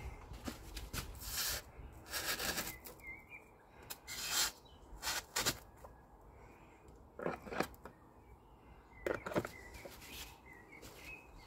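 A run of short scuffing, pressing sounds, several in quick pairs, as plastic pins are pushed by hand into the mushroom-head fixings of external wall insulation boards. Birds chirp faintly in the background.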